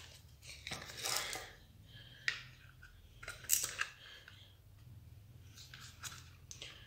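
Light clicks, taps and scrapes of a homemade PVC-sheet battery box and its cover being handled as the top cover is fitted, with a rustle about a second in and two sharp clicks in the middle.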